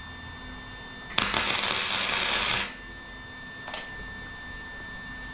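Arc welder laying a short tack weld on a steel tube frame corner: the weld starts suddenly about a second in and runs as a loud, even crackle for about a second and a half before cutting off. A short clink follows about two seconds later.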